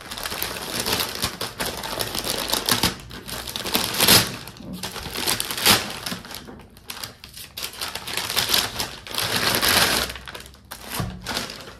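Brown paper parcel wrapping being torn open and handled: a dense run of paper crinkles and rips, loudest about four and six seconds in.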